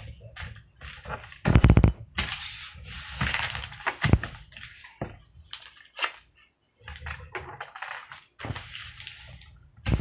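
A crumpled sheet of notebook paper being crinkled and smoothed flat by hand on a wooden table: irregular crackling and rustling, with a louder crackle about one and a half seconds in.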